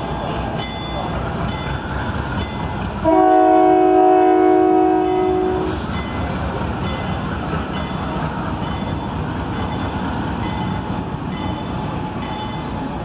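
GE U30C diesel-electric locomotive sounding one long blast on its air horn, several notes at once, about three seconds in. Its 16-cylinder diesel runs under the horn and after it as the locomotive pulls away.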